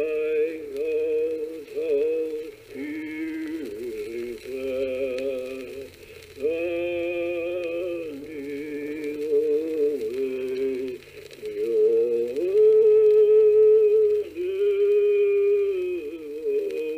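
A single voice singing a Passamaquoddy song without words in English, in phrases of held notes that slide between pitches; the longest and loudest held note comes about two-thirds of the way through.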